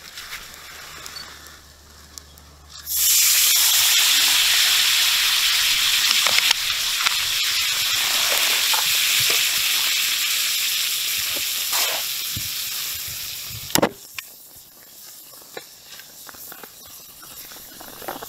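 Lump of calcium carbide fizzing and hissing loudly as water reacts with it and gives off acetylene gas. The hiss starts suddenly about three seconds in and runs for about ten seconds, ending with a sharp click, after which it is much quieter.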